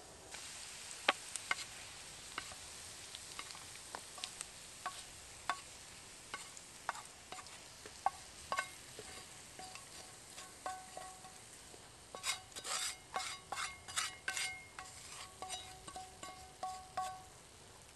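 A wooden spatula stirring and tapping in an iron skillet of sizzling food, with sharp irregular clicks. About twelve seconds in comes a quick run of scrapes with a ringing note as the food is scraped out of the pan.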